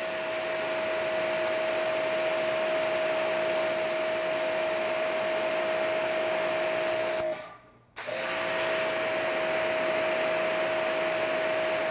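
Ryobi 2300 psi electric pressure washer running under trigger with the original Ryobi nozzle, pushing about 2000 PSI: a steady motor-pump whine over a loud hiss of spraying water. About seven seconds in it cuts out for half a second, then starts again, as its total-stop motor shuts off and restarts with the trigger.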